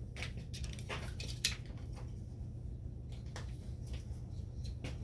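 Scattered light clicks and taps of tools and bike parts being handled, with one sharper click about a second and a half in, over a steady low hum.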